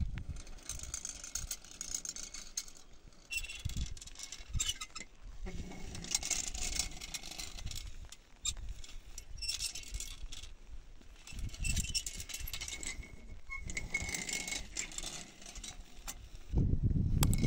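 Stone roller dragged back and forth over packed earth: gritty rolling and scraping in repeated strokes about a second long, with a light rattle. A louder low rumble comes in near the end.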